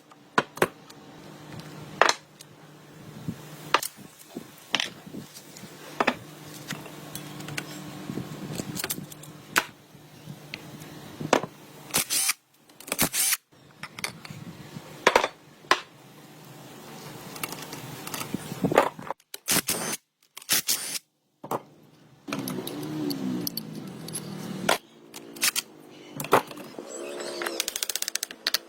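Hand tools and metal motorcycle parts clicking and knocking during workshop work, in a long series of irregular sharp taps. A few abrupt gaps of silence break it up.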